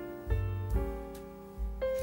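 Background piano music: gentle piano chords with new notes struck about every half second over held bass notes.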